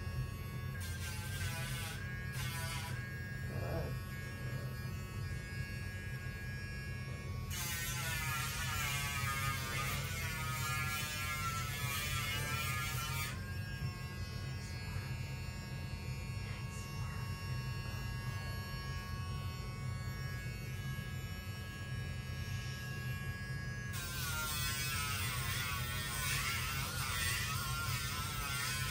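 Dremel rotary nail grinder running with a steady buzz, grinding a dog's toenails. Twice, for several seconds each (from about seven seconds in and again near the end), the grinding gets louder and harsher with a wavering pitch as the tool is pressed against the nails.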